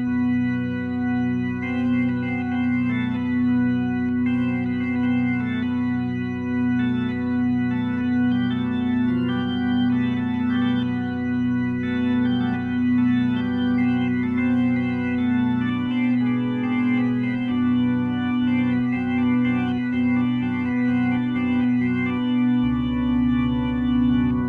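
Instrumental music: sustained organ-like keyboard chords held over a steady low note, with the bass line shifting twice in the second half.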